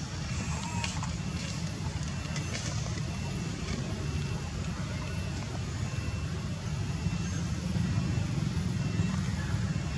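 Steady low outdoor background rumble, with a few faint short high peeps and small clicks now and then.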